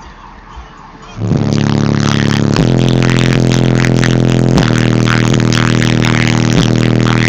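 Two 18-inch Incriminator Audio Death Penalty car subwoofers come on about a second in and play loud, deep, steady bass, with a short break about every two seconds.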